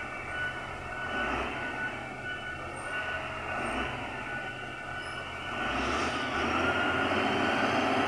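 Motor grader's diesel engine running steadily as it works the gravel road, growing louder a little past halfway through.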